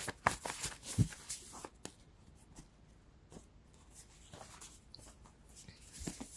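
Tarot cards being shuffled and handled: a run of soft card slaps and rustles, busiest in the first two seconds, then fewer and fainter.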